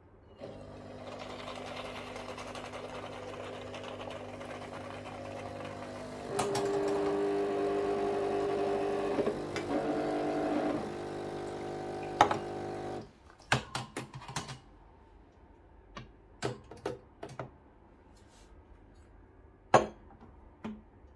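Breville Barista Pro espresso machine's vibration pump buzzing as it pulls a shot, stepping up louder about six seconds in as low-pressure pre-infusion gives way to full brewing pressure, and stopping suddenly about thirteen seconds in. A few light clicks and knocks follow.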